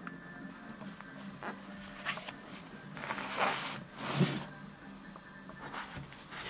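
A Moleskine notebook handled over a wooden tabletop: short rustles and scrapes of its cover and pages, with a longer, louder scrape about three seconds in followed by a soft knock.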